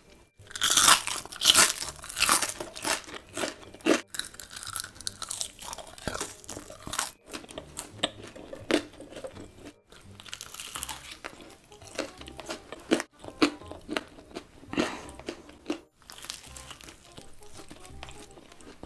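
Close-miked crunching and chewing of crispy fried food, with loud crunchy bites in the first couple of seconds and a bite into a fried chicken sandwich about halfway through. A few brief cuts to silence break up the eating sounds.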